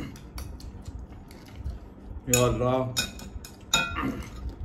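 Plates and utensils clinking and clattering in a run of short sharp clicks, with one louder ringing clink near the end. A person makes a short vocal sound a little over two seconds in.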